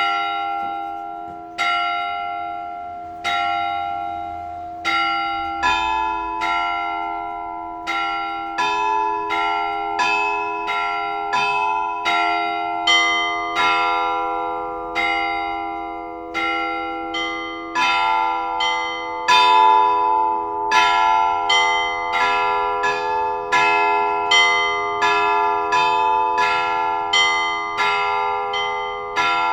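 Russian Orthodox church bells ringing. At first there are single slow strokes about every second and a half. About five seconds in, several higher bells join in a quick, rhythmic peal over the lingering ring of a deeper bell.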